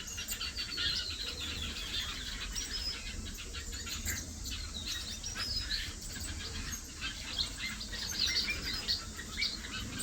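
A flock of small aviary finches, Gouldian and parson finches, chirping and calling continuously: many short, high overlapping chirps.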